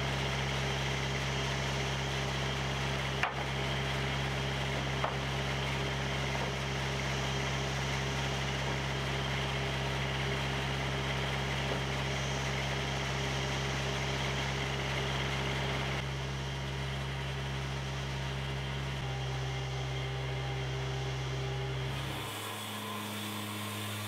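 Wood-Mizer portable band sawmill running steadily with a low engine hum, with a sharp knock about three seconds in and another about five seconds in. The sound shifts shortly before the end.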